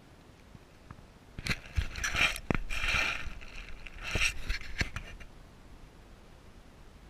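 Dog chewing a bone: sharp cracks and crunching. It starts about a second and a half in and stops about five seconds in.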